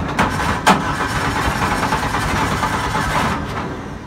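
Four-cylinder inboard engine of a wooden river boat running briefly after being started, then dying away about three and a half seconds in, with a sharp click near the start. It is a hard-starting engine that needs new spark plugs.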